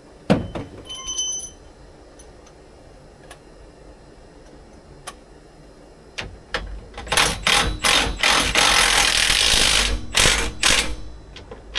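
Socket wrench with a 19 mm socket tightening the swivel seat's outer mounting bolts: a metallic clink with a short ring near the start, then from about six and a half seconds a run of fast mechanical clicking that turns into a continuous rattle and stops about a second before the end.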